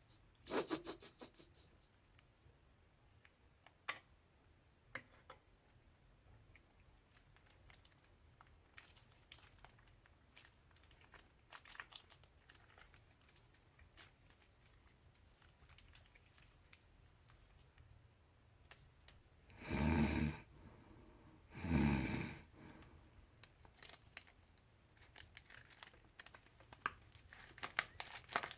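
Plastic piping bags and slime-making materials being handled: scattered small clicks and crinkles, with two louder rasping noises, each under a second, about two-thirds of the way through.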